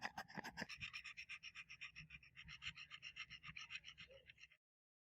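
Rapid scrubbing strokes of a brush on a surface, about eight to ten a second, cutting off abruptly near the end.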